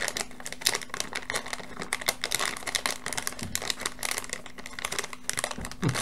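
Plastic packaging bag of an electronics kit being crinkled and opened by hand: a dense, irregular run of crackles.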